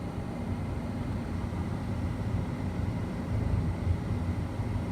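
2011 Jeep Liberty's HVAC blower fan running steadily, a low even rush of air inside the cabin with the engine off.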